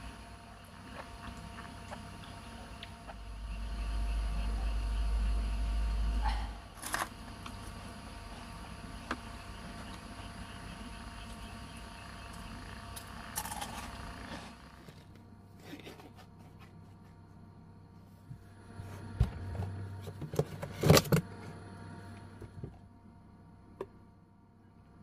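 Scattered clicks, knocks and scrapes of small objects being handled, over a faint steady hiss, with a low rumble for a few seconds near the start and the loudest knocks a little past two-thirds of the way through.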